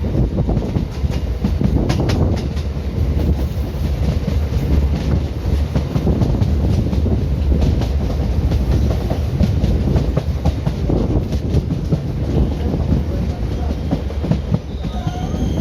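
Indian Railways ICF train carriage running along the track: a steady low rumble with irregular clicks of the wheels over rail joints. Near the end a high-pitched wheel squeal sets in.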